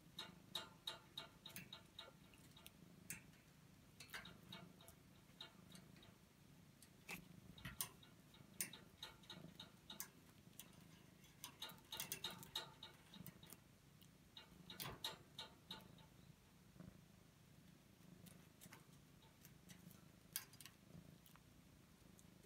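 Light, irregular clicks and taps of a feather cat-teaser wand and a cat's swats knocking about a wire pet pen, quick and clustered at first and sparser near the end.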